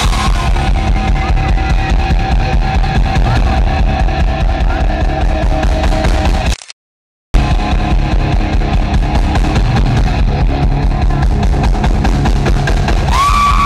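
Live rock band playing loud: drum kit and electric guitars through the PA, heard from the crowd. The sound cuts out completely for under a second about six and a half seconds in, and a high held note comes in near the end.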